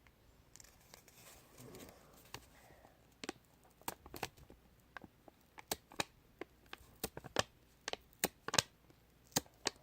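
Craft materials being handled: a soft crinkling rustle for about two seconds, then a run of irregular sharp clicks and snaps that come more often toward the end.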